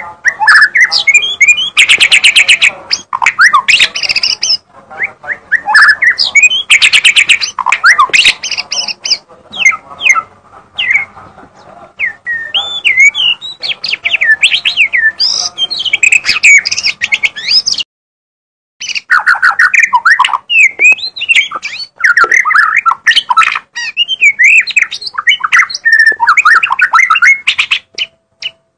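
White-rumped shama (murai batu) in full, energetic song: a loud, near-continuous run of varied whistles, sweeping notes and fast rattling trills, with one complete break of about a second a little past the middle.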